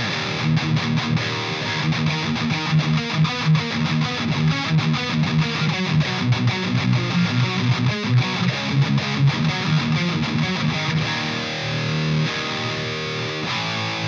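Electric guitar through an EVH 5150III LBX EL84 valve amp head on its high-gain channel with the mids scooped: heavily distorted, fast-picked riffing, giving way about eleven seconds in to longer ringing held notes.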